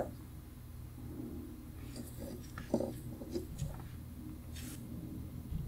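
Faint small clicks and taps of steel tweezers and a screwdriver on a watch movement in its holder, a few scattered, over a steady low background hum.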